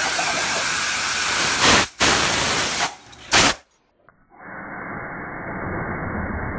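Compressed air hissing from an air-hose blow gun in three blasts: a long one, a second after a brief break, and a short puff about three and a half seconds in. After a moment of near silence comes a dull, muffled steady rumble, the slowed-down sound of the slow-motion replay.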